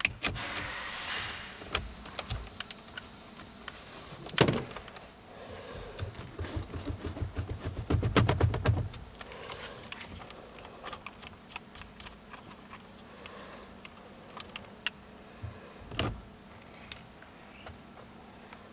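Hand tools and parts being handled at a car's steering column: scattered clicks and knocks, a thud about four seconds in, a quick run of clicks about halfway, and another knock near the end.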